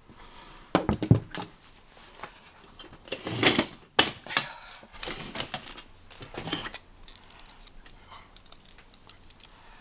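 Light knocks and clatters of things being set down on a wooden-topped table and a chair moving as someone sits down at it. The loudest knocks come about a second in and around three to four seconds in, followed by a few faint clicks.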